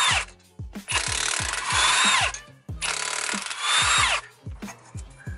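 Cordless impact wrench spinning the bolts out of a wheel spacer on a rear hub, in three bursts of about a second and a half, each ending in a falling whine as the trigger is let go. Background music with a steady beat runs underneath.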